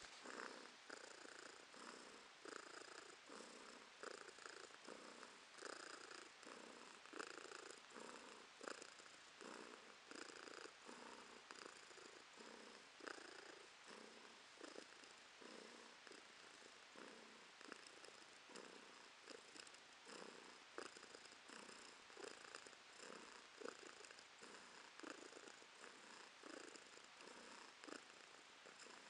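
Domestic cat purring softly and steadily while its neck and belly are being rubbed, a sign of contentment. The purr swells and fades in a regular rhythm with each breath.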